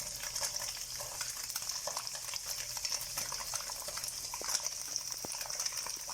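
Tofu and garlic sizzling in hot oil as a spatula stirs them round the pan: a steady sizzle with scattered light clicks and scrapes of the spatula against the pan.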